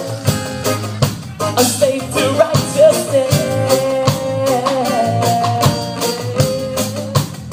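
A live reggae band playing: a steady drum-kit beat and strummed guitars, with a held melody line over the top that bends in pitch through the middle.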